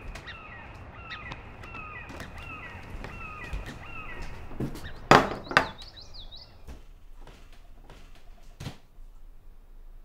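A bird chirping over and over, a short falling note about every half second, then a brief warble. Two loud knocks about five seconds in and a softer one near the end.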